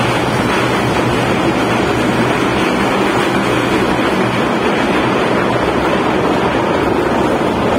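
Kurobe Gorge Railway trolley train running through a tunnel, heard from inside an open-sided passenger car: a loud, steady rumble of the running train that never lets up.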